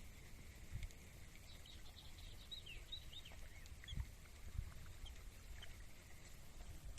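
Wind buffeting the microphone as a low, uneven rumble. A few faint, short, high chirps come about two to three seconds in.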